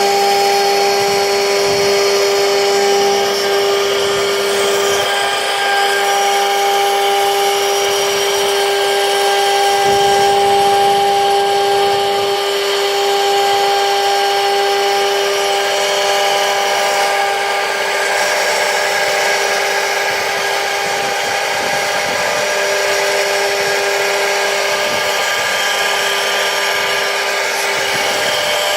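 CNC router running: a steady high whine from the spindle over a rough, continuous cutting noise.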